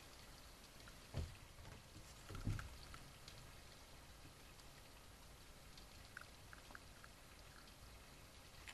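Raccoons moving and tussling on a wooden deck: two dull thumps, about a second in and again a second later, then a few faint small clicks over a low steady hiss.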